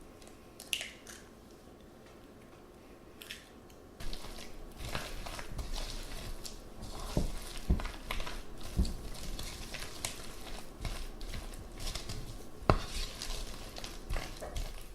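A utensil stirring and scraping thick kimchi pancake batter in a bowl, with sharp knocks against the bowl. The mixing starts about four seconds in, after a few faint clicks.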